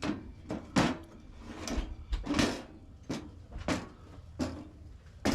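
A series of sharp knocks and clacks, about eight of them, coming roughly one every half to three-quarters of a second.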